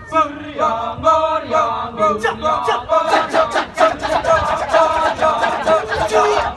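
Live performance music for a Balinese dance-drama, with a group of voices chanting in quick, repeated notes.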